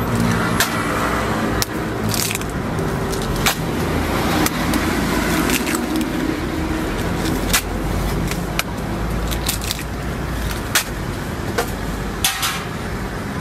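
Eggs being cracked one after another on the rim of metal egg-bread molds on a griddle, giving about ten sharp taps at uneven intervals. Underneath is a steady hum of street traffic.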